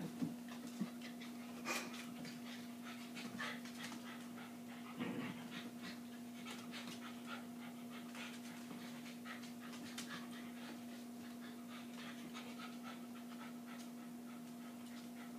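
Silky Terriers panting and scuffling as they play-fight on a blanket-covered dog bed, with many small ticks and rustles. A steady low hum runs underneath.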